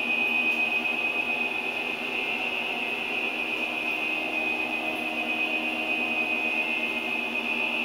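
A small motor running with a steady, unchanging whir.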